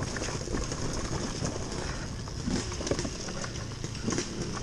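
TM Racing MX250 dirt bike coasting downhill with its engine off: knobby tyres crunching over loose rocks and the bike rattling and knocking irregularly over bumps.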